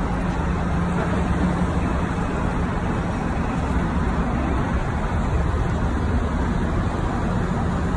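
Busy city street traffic: a steady rumble of passing cars and city buses, with a low engine hum in the first couple of seconds.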